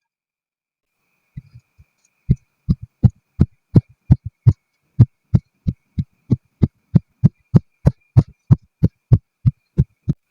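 Repeated soft, dull thuds of a knife cutting through a block of kinetic sand, about three strokes a second, steady and rhythmic, with a few lighter taps just before.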